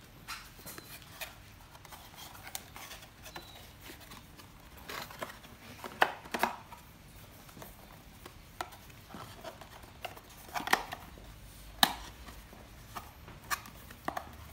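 Handling of cardboard packaging and small plastic camera parts: scattered clicks, taps and light knocks, with a few sharper knocks among them, as a GoPro Hero 7 and its accessories come out of the box.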